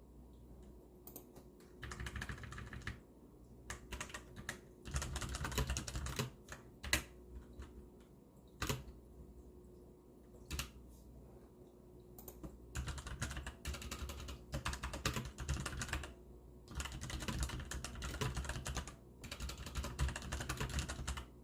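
Hansung GTune GK600 mechanical keyboard with brown switches being typed on: runs of rapid keystrokes a second or three long, broken by short pauses and a few single key presses.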